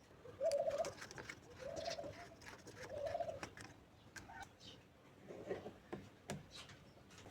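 A dove cooing three times about a second apart, then a lower coo a couple of seconds later, amid faint scattered clicks and taps.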